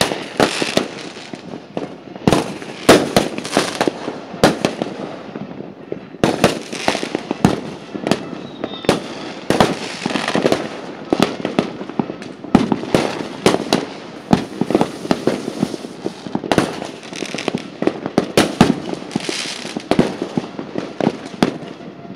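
Aerial fireworks exploding in the night sky: a continuous, irregular run of bangs, several a second, some much louder than others.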